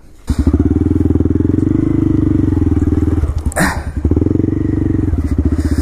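Honda Grom's 125 cc single-cylinder four-stroke engine running at low, steady revs, coming in abruptly just after the start. A short clatter sounds over it about halfway through.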